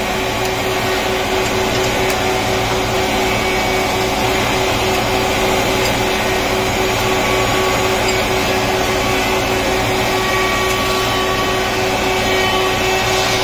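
Four-sided wood planer (moulder) running steadily in a workshop, a constant machine hum and whine with no change in pitch or level.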